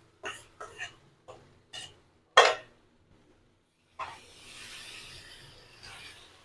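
A spatula stirring soaked poha into sautéed onions in a kadai, scraping the pan in about six short strokes, the loudest a sharp knock about two and a half seconds in. A soft steady hiss follows over the last couple of seconds.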